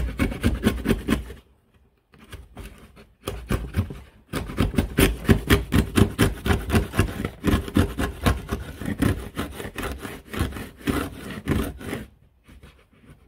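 3D-printed router plane, using a chisel as its cutter, scraping and paring wood out of a groove in rapid short strokes. There are brief pauses about one and a half and four seconds in, and the strokes stop near the end.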